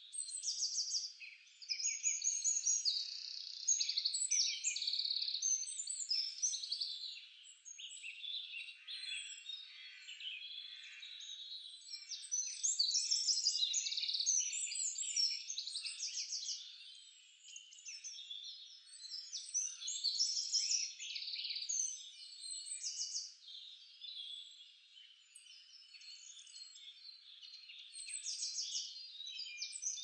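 A chorus of birds singing together: overlapping high chirps and rapid trills that swell and fade every few seconds.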